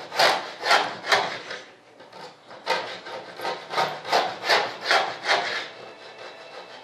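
Hand tool worked back and forth over a foam wing panel, making rasping, sawing-like strokes about two or three a second. The strokes pause briefly about a second and a half in, then resume and fade near the end.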